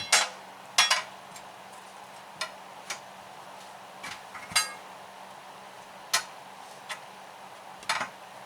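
Steel tire bars clinking and knocking against the steel rim of a large tractor rear tire as the hard, dry bead is pried over the rim lip: about eight sharp metallic clinks at uneven intervals, a few of them loud.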